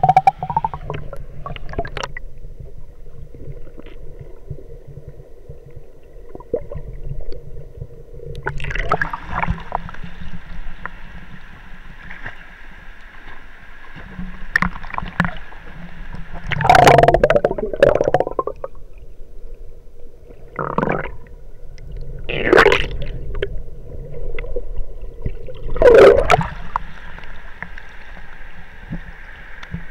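Muffled water gurgling and sloshing heard through an action camera's waterproof case, with five louder bursts of splashing spread through.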